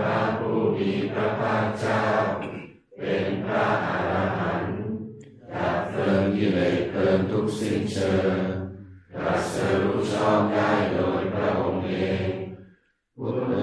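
Theravada Buddhist morning chanting recited by a group of voices on a near-monotone, in phrases of a few seconds separated by short pauses for breath.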